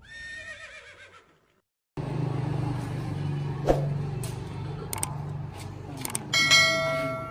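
A horse's whinny fades out, then after a short gap a vehicle engine runs with a steady low hum, broken by a few sharp clicks. Near the end a loud, steady tone with many overtones sounds for about a second.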